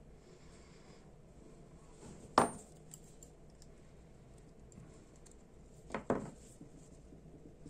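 Small metal clicks from handling a Dupont Minijet lighter's parts and fine hand tools: one sharp click about a third of the way in, then two close clicks later, over a faint background.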